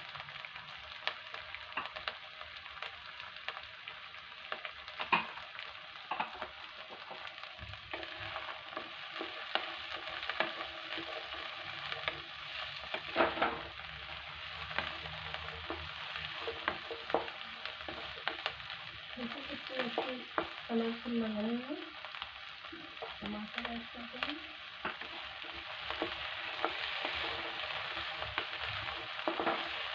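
Diced carrot, onion and green capsicum sizzling in hot oil in a pan while a wooden spatula stirs and scrapes them. A steady sizzle runs under frequent short scrapes and knocks of the spatula against the pan.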